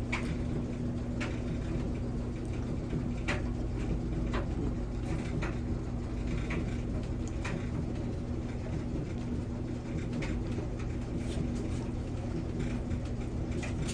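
A steady low hum with a constant faint tone, and scattered light clicks and taps.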